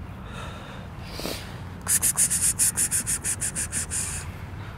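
A rapid run of about fourteen short, high hissing sounds, about six a second, lasting about two seconds, made by a person coaxing a hiding cat out of a basement vent.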